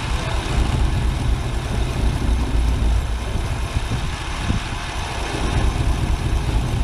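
1987 Chevy Suburban's swapped-in V8 idling low and unevenly with a miss (a hiccup). The owner suspects the plug wires, the distributor advance or a vacuum leak.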